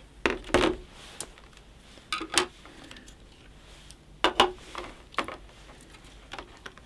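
Clear plastic blister tray clicking and rattling as small plastic accessories are pried out of it and set down: a handful of separate clicks and knocks spread out over several seconds.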